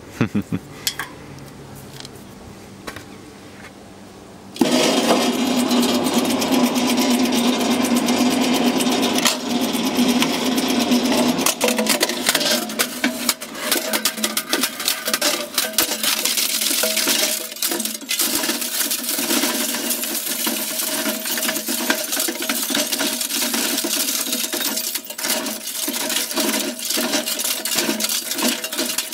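Shredder chewing through 3.5-inch floppy disk drives. After a quieter stretch with a few clicks, from about four and a half seconds in a loud, continuous crunching and grinding of metal and plastic, full of sharp cracks.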